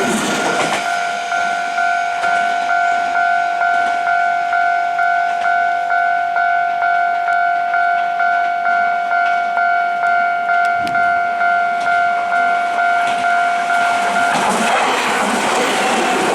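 Japanese level crossing warning bell ringing, a two-note electronic clang repeating about twice a second, with broad train noise fading in the first second. About fourteen seconds in the bell stops and a broad rushing noise of passing traffic takes over.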